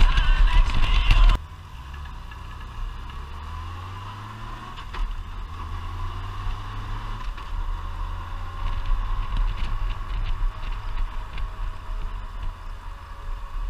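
Motorcycle riding, heard from a helmet-top camera. A loud rush of wind noise for the first second or so cuts off suddenly. After it comes the engine's low hum, rising in pitch a few seconds in as the bike accelerates.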